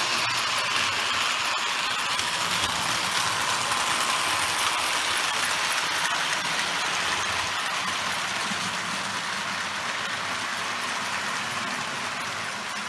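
Lionel 682 O-gauge model steam turbine locomotive running around the track, a steady whir of its electric motor and gears with the rumble of wheels on rail.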